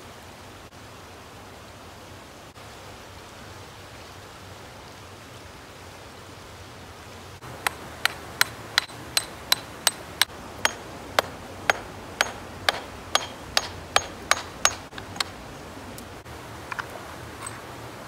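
Steady rush of water with a run of about twenty sharp, ringing strikes, evenly paced at about two and a half a second. The strikes start about halfway through and stop a few seconds before the end.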